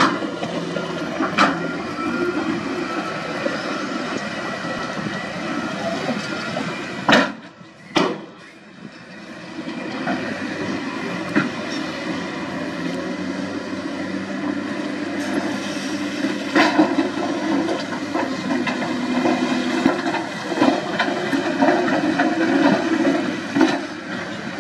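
Heavy earthmoving machines at work, a bulldozer, a wheel loader and dump trucks: steady diesel engine noise with rushing and rattling, and a few sharp metal clanks. The sound drops briefly about seven seconds in, then returns.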